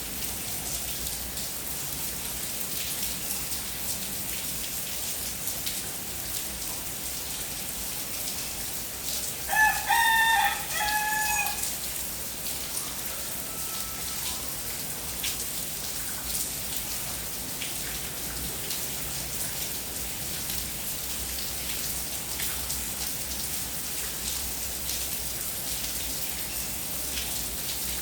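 Steady rain falling, with a rooster crowing once about a third of the way in, a single call of about two seconds.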